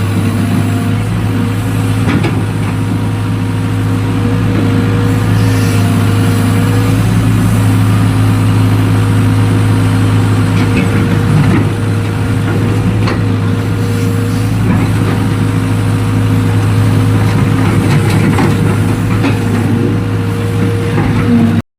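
Excavator engine running steadily under load, with a low constant hum and a few scattered clanks from the working machine.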